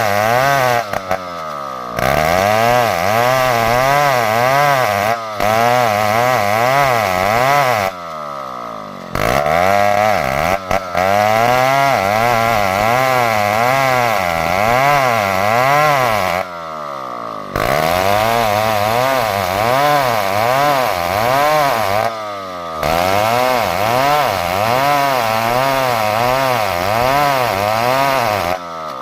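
A chainsaw engine running hard while cutting through a log, its pitch wavering up and down as the load changes. It eases off briefly four times.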